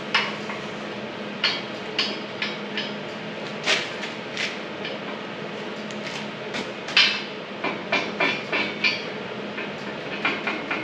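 Steel pieces clanking and being knocked as they are handled and fitted, with irregular sharp metallic knocks and a quicker run of taps near the end, over a steady low hum.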